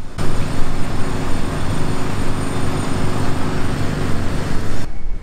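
Construction machinery running: a loud, steady engine drone under a dense din of noise, starting and stopping abruptly.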